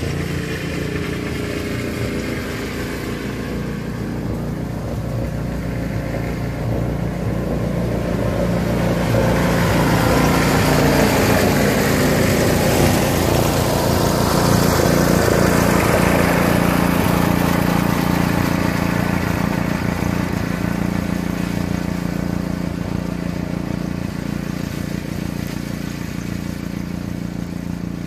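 Pickup truck towing a running tow-behind mower: a steady engine drone that grows louder as it passes close, about halfway through, then fades as it moves off.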